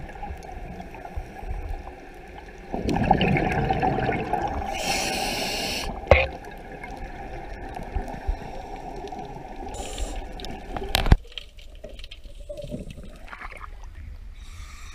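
Muffled water noise picked up by an underwater camera, with a louder stretch of gurgling and bubbling from about three to six seconds in. There are sharp knocks around six and eleven seconds, and after the second knock the sound goes quieter and thinner.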